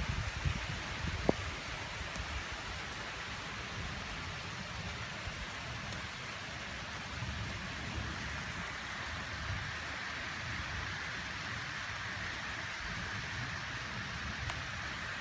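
Steady thunderstorm rain, a constant even hiss, with an uneven low rumble underneath. A single sharp click sounds about a second in.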